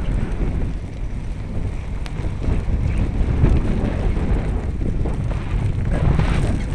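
Wind buffeting the microphone of a camera carried on a moving bicycle, a steady low rumble.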